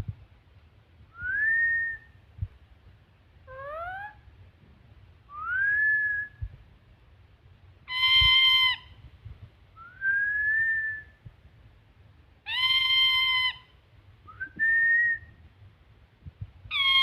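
Pet parrot whistling: short whistles that each rise in pitch, five in all, broken by three louder, flat, harsher calls of about a second each. Those calls are the bird calling out instead of whistling.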